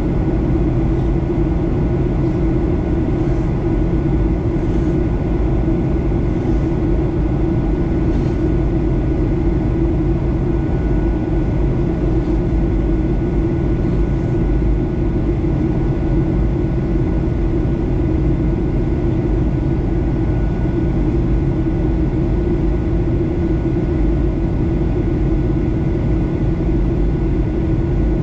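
Steady in-flight cabin noise of a Boeing 737-800 heard from a window seat over the wing: the CFM56-7B jet engines and the airflow make a constant low drone with a deep hum and two faint high steady whines, unchanging throughout, as the airliner descends.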